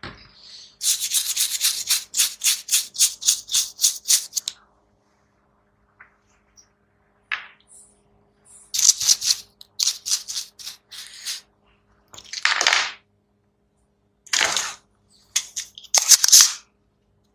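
Bristle paintbrush scrubbing a circuit board wet with thinner: a fast run of short strokes, about four a second, then a few separate bursts of brushing or rubbing later on.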